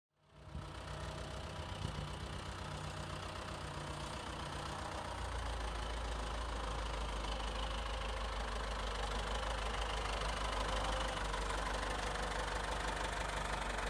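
Ford 7810 tractor's diesel engine running steadily as the tractor drives up, its low hum growing stronger from about five seconds in.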